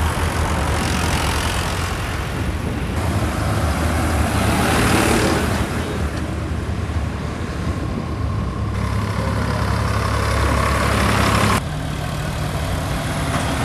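Vehicle engine running steadily at road speed, with wind and road noise. The sound changes abruptly twice, about three seconds in and near the end.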